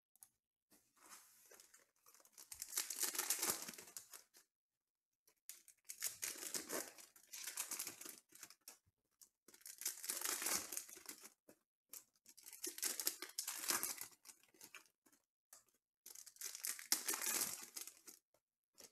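Foil wrappers of Panini Prizm football card packs being torn open and crinkled by hand, in five separate bursts about three to four seconds apart.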